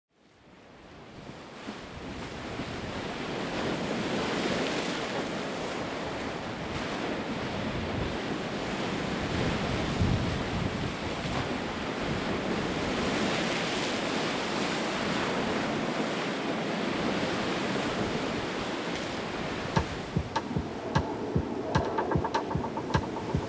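Sea surf washing and swelling in slow waves, fading in from silence. Near the end a regular ticking beat of about two clicks a second comes in.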